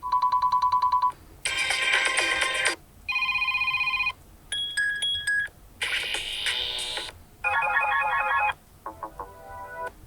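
Blackview BV6600E smartphone playing short previews of its built-in ringtones one after another, about seven in all. Each lasts a second or so and is cut off before the next starts. They begin with a fast-pulsing electronic beep, then move through short musical and chime-like tunes.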